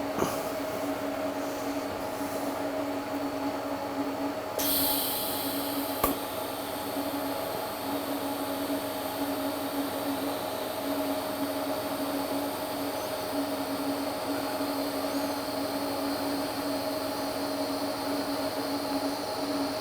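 Welding arc running steadily as a bead is laid around a steel joint, starting with an abrupt steady hiss about four and a half seconds in, over a constant hum. One sharp click comes about a second and a half after the arc starts.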